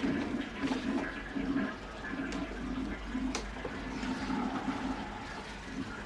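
Toilet flushing: a rush of water that gradually dies away, with two sharp clicks partway through.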